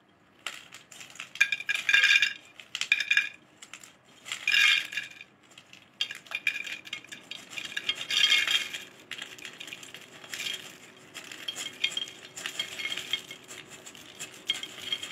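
Slices of fresh coconut dropped by hand onto a terracotta clay plate, clattering and clinking in repeated bursts of many small knocks as the pile builds.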